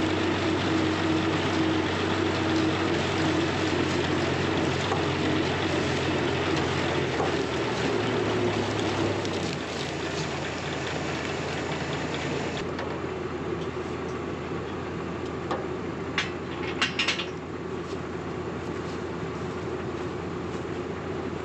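Combine harvester running steadily while harvesting corn, its engine and machinery giving a low hum. The engine note drops and the sound eases about nine to ten seconds in. A few short sharp clicks come about sixteen seconds in.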